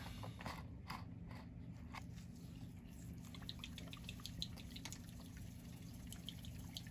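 Faint small clicks and taps of small items being handled on a model-building bench, over a steady low hum.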